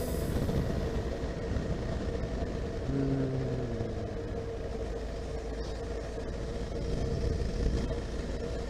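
Honda CB1300SF's inline-four engine running steadily under way, with road noise.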